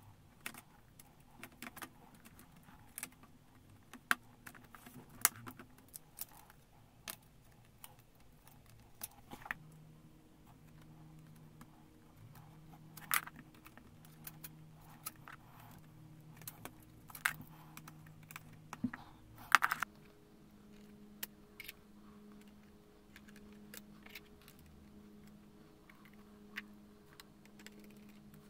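Scattered small clicks and taps of plastic and metal parts being fitted into a laptop chassis, with a small screwdriver turning screws, the sharpest cluster of clicks about two-thirds of the way through.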